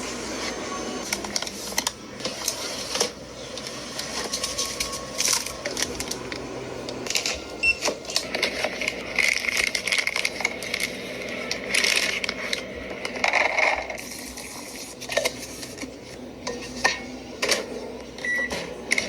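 Food containers and utensils being handled: a run of clicks, clinks and scraping sounds.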